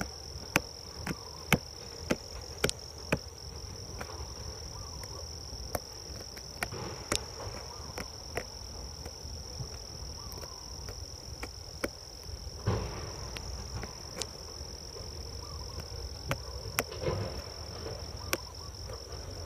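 Insects trilling on one steady high note, with scattered sharp clicks and scratches as fingers scrape into a flower bud on a dragon fruit stem.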